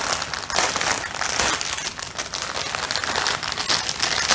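Clear plastic packaging crinkling as it is handled, a continuous run of fine crackles. The bag holds the kit's packets of diamond-painting drills.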